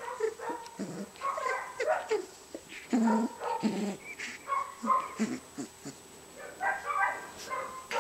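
Rough collie puppy giving many short yips and whines as it plays with a plush toy.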